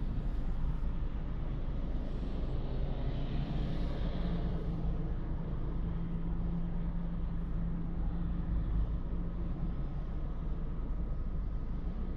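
Renault Captur's 1.2 TCe turbocharged four-cylinder petrol engine and tyre and road noise while driving; the engine note climbs a little a few seconds in, holds steady, then fades back into the road rumble near the end.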